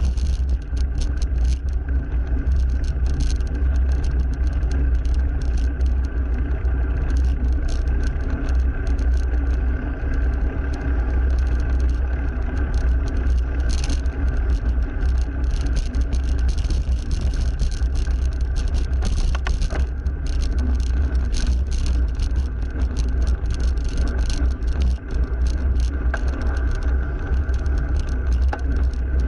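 Road noise from a bicycle ride beside passing traffic: a steady heavy low rumble with frequent small rattles and clicks.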